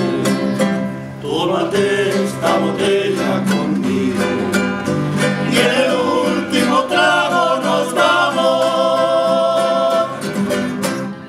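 Acoustic guitar and a small mandolin-like plucked string instrument playing a bolero, with men's voices singing. There is a brief dip about a second in, long held notes in the last few seconds, and then the music fades out at the end.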